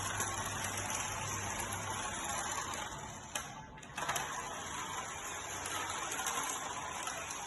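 Toy remote-control car's small electric motor whirring as it drives, the sound dipping briefly about three and a half seconds in and then starting again sharply.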